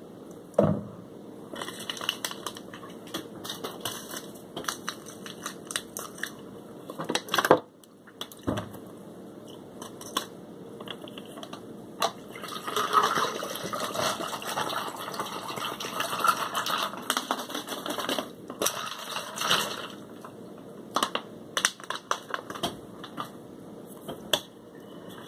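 Handling noise of drink-mix packets being crinkled and torn open, with many small clicks and knocks, and in the middle stretch liquid pouring into a cup until it is nearly full.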